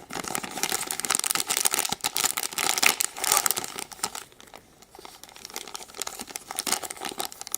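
Crinkly packaging being handled and pulled open by hand, with dense crinkling, a short lull in the middle, then more crinkling.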